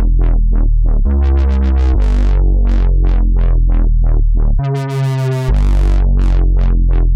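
Wobble bass played on the XTC software synthesizer: a deep sustained bass note whose filter opens and closes about three times a second, pulsing faster for a moment about a second in. Near five seconds in it jumps briefly to a higher, brighter note before the low wobble returns.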